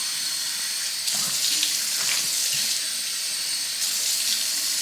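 Water tap turned on abruptly and running steadily into a sink.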